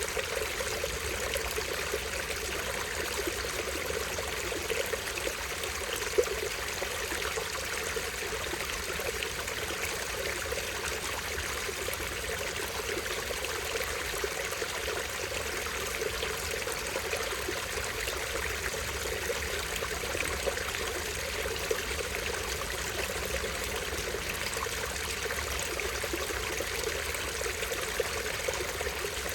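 A small stream running over a tiny waterfall: water trickling and splashing in a steady, even babble, with a few brief louder ticks.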